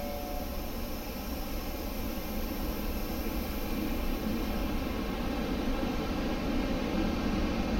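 E5 series Shinkansen bullet train pulling out of the station alongside the platform: a steady rushing hum of the electric train that grows gradually louder as it gathers speed.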